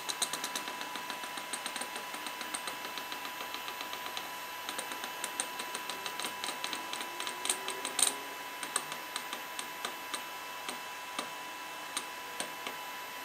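A run of light, sharp mechanical clicks, quick at first and sparser later, with one sharper click about eight seconds in, made while adjusting the milling machine setup by hand to indicate the tap. Under it is a steady high thin whine.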